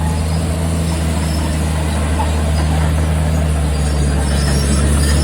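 Dump truck's diesel engine running steadily under a broad rushing noise.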